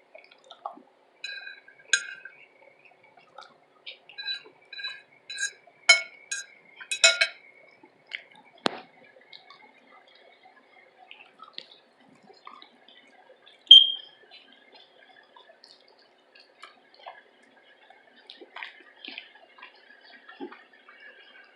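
Close-up eating sounds: utensils clinking against a plate, with small wet clicks from chewing. The clinks come in a quick cluster in the first seven seconds, and one sharp ringing clink about 14 seconds in is the loudest.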